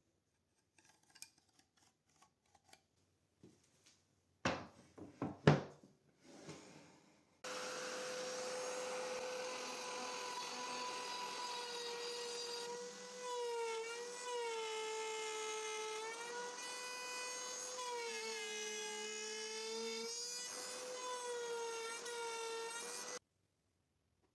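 Light knocks and two sharp bangs as wood is handled, then a table saw comes in with a steady whine whose pitch dips several times as the blade cuts through a board. It cuts off abruptly near the end.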